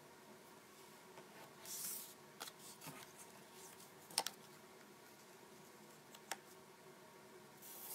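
Paper cutouts being handled and laid onto a paper phone mock-up: two short rustles of sliding paper and a few sharp clicks of card against card, the loudest about four seconds in.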